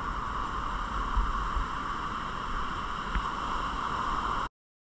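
Ocean surf washing onto the beach, with wind rumbling on the microphone; it cuts off suddenly near the end.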